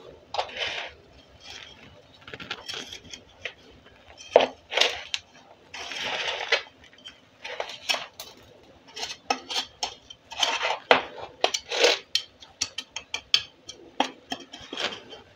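Metal hand trowel scraping and scooping potting soil into a plastic pot: irregular scrapes, then a quick run of small clicks and taps of the blade near the end.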